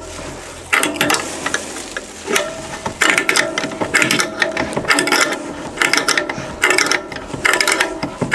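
Hand ratchet clicking in repeated runs of quick ticks as the loft-ladder frame's adjusting screws are tightened to draw the frame up to the ceiling.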